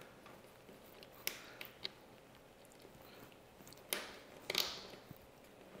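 Cable being handled and pressed into small plastic cable clips under a desk: a few faint clicks and rustles, about a second in and again around four seconds in.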